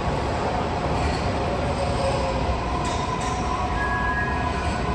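MARTA heavy-rail train in the station: a steady low rumble with a few faint whining tones, and a brief high squeal about four seconds in.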